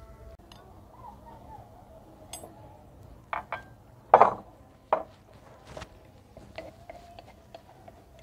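Earthenware plates and a metal spoon clinking and knocking: two sharp clinks about three seconds in, the loudest knock just after four seconds, then lighter clinks and taps, with a spoon working in a jar near the end.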